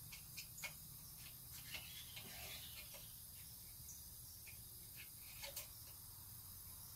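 Faint, irregular metallic clicks and taps of hands and tools working inside the quill bore of a Bridgeport milling machine head, over a low steady hum.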